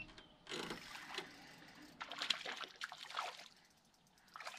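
Water splashing and sloshing in two short bouts, the first about half a second in and the second about two seconds in.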